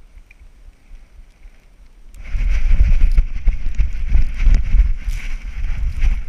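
Black Labrador running through snow, heard from a camera strapped to its vest: uneven thudding footfalls and jostling with wind buffeting the microphone, starting loudly about two seconds in.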